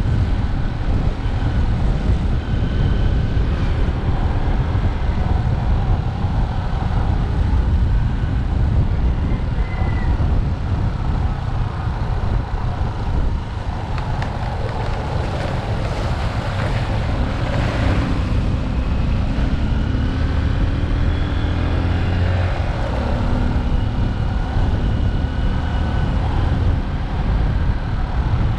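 Motorcycle engine running steadily while riding, with wind buffeting the microphone. The engine pitch rises briefly a few times past the middle of the ride.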